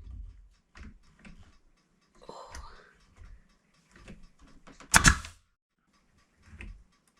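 A brad nailer fires once about five seconds in, a sharp crack as it drives a brad into a trim board, with small knocks and clicks of handling around it.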